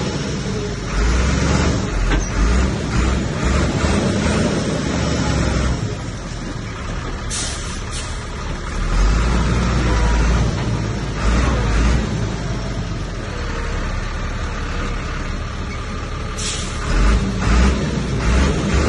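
Heavy diesel earthmoving machinery running, its low engine rumble swelling and easing as the load changes, with two brief hisses.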